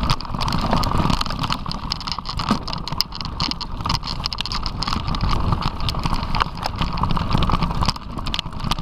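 Mountain bike riding over a rough dirt trail, with a steady rattle of quick clicks and knocks and a heavy rumble of wind on the action camera's microphone.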